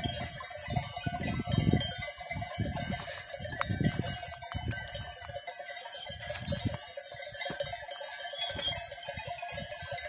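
Many livestock bells on a grazing flock of sheep and goats, clinking and ringing without a break. Irregular low rumbling bumps on the microphone run underneath.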